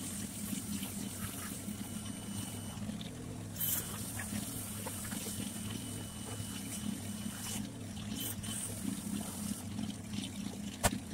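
Pressure washer spraying the roof and hood of an old pickup truck: a steady hiss of water jet and spray over a steady low hum, with a short louder burst about three and a half seconds in and a sharp click near the end.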